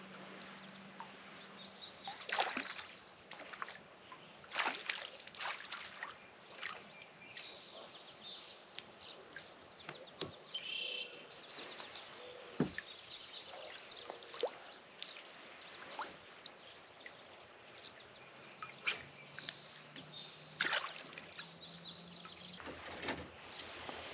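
Small water sounds at a kayak, light sloshing and trickling, with scattered clicks and knocks through the quiet.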